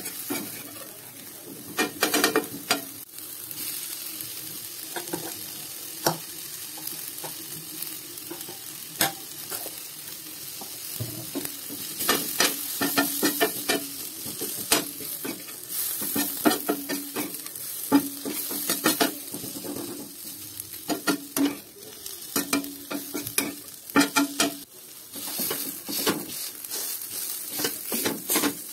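Chopped onion, tomato and egg mixture sizzling in oil in an iron pan, with a spatula repeatedly scraping and knocking against the pan as it is stirred.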